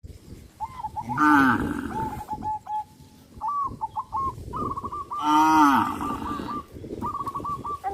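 Cow mooing twice, two long calls that rise and fall in pitch, about a second in and again about five seconds in. Short high chirps repeat steadily in the background.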